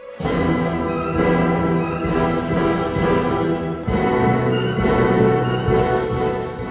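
Orchestral classical music with strings and brass, played with a regular accent just under a second apart.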